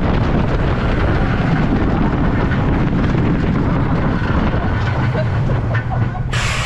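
Rocky Mountain Construction wooden roller coaster train running along its track at speed: a loud, steady rumble with wind on the microphone. A sharp hiss sets in near the end.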